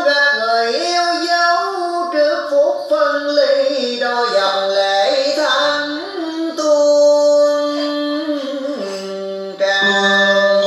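Singing with musical accompaniment: a voice holding and gliding between notes over instruments.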